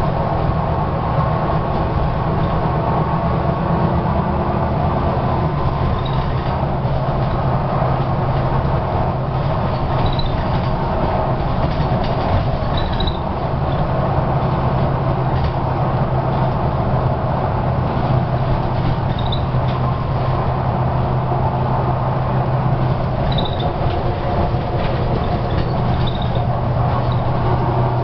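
Volvo B9TL double-decker bus on the move, heard from its upper deck: a steady engine and drivetrain drone that steps in pitch a couple of times, under constant rattling and creaking of the body and fittings with short high squeaks now and then.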